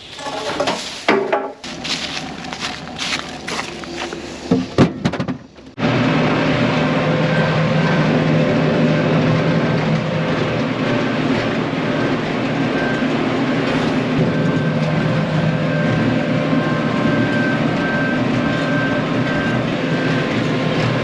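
Wooden blocks knocking and clattering as they are set down. About six seconds in, a loud, steady machine drone starts suddenly and holds even.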